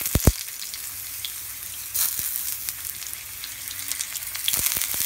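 Hot olive oil sizzling in a non-stick pan as marinated stuffed mushrooms, capsicum and tomato pieces are laid in, the sizzle flaring as pieces land. Two sharp knocks just after the start and a few lighter taps near the end.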